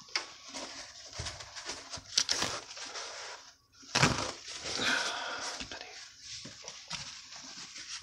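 Handling noise from a hand-held phone, with irregular rustling and light plastic knocks and clicks as a washing machine's drain-pump filter is handled over a plastic tub. There is a brief near-gap about three and a half seconds in, then louder rustling.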